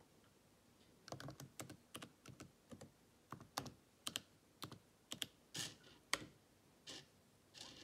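Typing on a computer keyboard: an irregular run of key taps starting about a second in, with a slightly heavier keystroke near the end.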